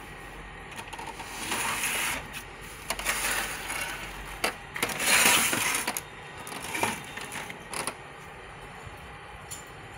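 Canon LBP6300dn laser printer being handled: irregular bursts of plastic clattering and clicks, loudest about five seconds in.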